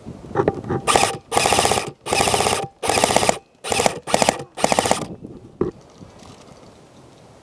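Airsoft rifle firing on full auto in a string of about seven short bursts, each a fast run of closely spaced shots, over about four seconds.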